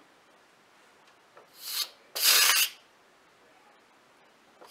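Electric pressure cooker's steam release valve letting out two short bursts of hissing steam, the second louder and starting abruptly: the pressure being vented after cooking.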